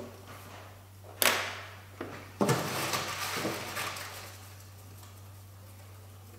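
A sharp knock about a second in, then paper lottery slips rustling as a hand rummages through them in a glass ballot box, loudest about two and a half seconds in and dying away after about four seconds.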